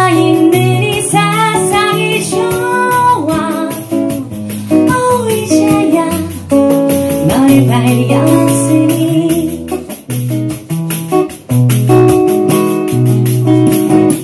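Live song: a woman singing a melody into a microphone over strummed acoustic guitar accompaniment.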